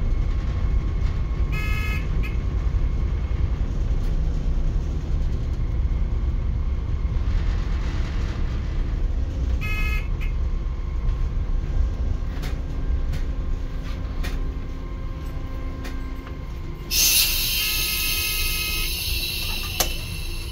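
British Rail Class 139 Parry People Mover flywheel railcar running slowly into its terminus, with a steady low rumble from the cab. Two short pitched tones sound, about 2 and 10 seconds in. About 17 seconds in, as it comes to a stand at the platform, a loud hiss starts and lasts about two seconds, followed by a sharp click.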